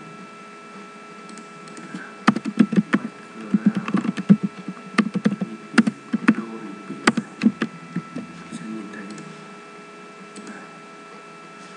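Computer keyboard keys clicking in an irregular run of keystrokes as code is typed, lasting about five seconds and starting about two seconds in, over a steady faint electrical hum.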